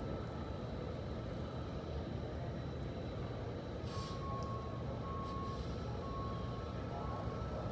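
Tractor-trailer reversing slowly, its diesel engine running low and steady. A reversing alarm beeps three times in the second half, and a short hiss sounds about four seconds in.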